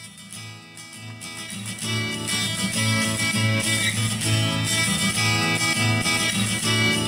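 Music playing from an ARCHEER A320 2.1-channel Bluetooth home speaker: a clean track with not a lot of bass, its low end coming from the subwoofer. It swells in loudness over the first two seconds, then plays steadily with a regular low beat.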